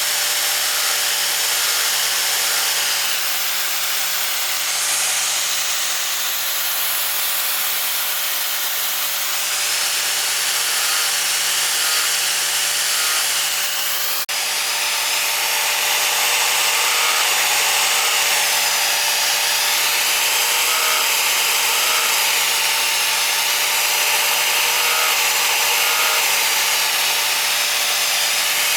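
Powered saw machine running steadily as it cuts through a large log into boards, a continuous hiss of sawing over a steady motor hum, broken by a momentary drop about halfway through.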